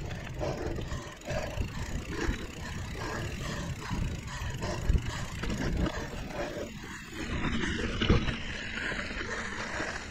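A 2017 Liv Pique 3 mountain bike rolling fast along dirt singletrack: steady tyre and wind rumble on a chest-mounted action camera's microphone, with sharp knocks from the bike over bumps about five and eight seconds in.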